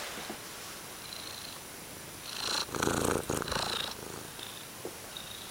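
Siamese cat purring loudly and steadily, with a louder, rougher stretch of about a second and a half starting about two and a half seconds in.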